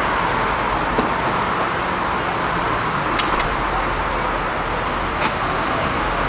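Steady hiss of road traffic outdoors, with a few light clicks of a key turning in a door lock.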